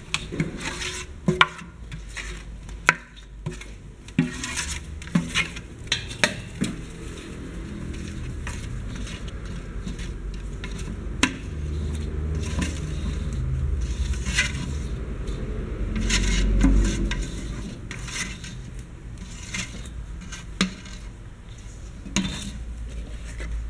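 A metal pot clinking and knocking against a stainless-steel hopper while thick paste is poured in, with spatulas scraping the pot and the hopper walls. The sound is scattered light clicks and scrapes rather than anything steady.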